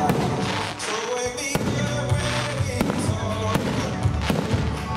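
Fireworks display, aerial shells bursting in sharp cracks about once a second, over music playing throughout.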